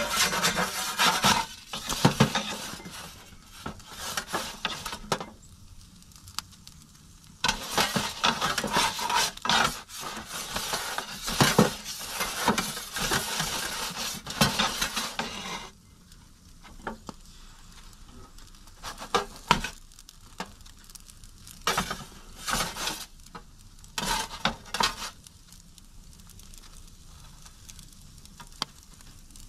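Metal pizza turning peel scraping and clinking against the floor of a charcoal/wood-fired pizza oven as the pizza is slid and rotated. There are two long bouts of steady scraping, then a string of short separate scrapes and clinks.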